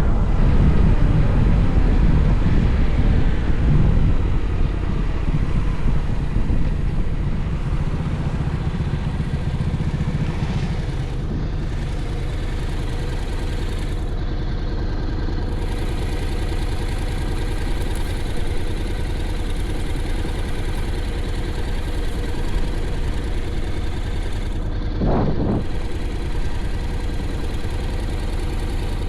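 Honda X-ADV's parallel-twin engine coming off speed, with wind and road noise dying away over the first ten seconds or so, then idling steadily. About 25 seconds in, a single short throttle blip rises and falls.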